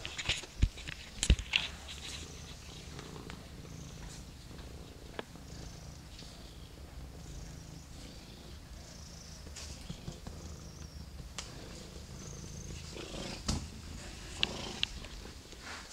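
Ginger domestic cat purring steadily, close to the microphone. A few sharp knocks, the loudest in the first couple of seconds and again near the end.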